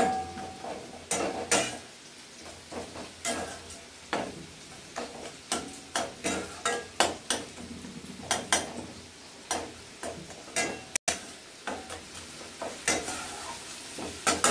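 Slotted steel spatula scraping and stirring a thick tomato-spice masala around a stainless-steel pan, in irregular strokes about once a second, over the low sizzle of the masala frying in oil.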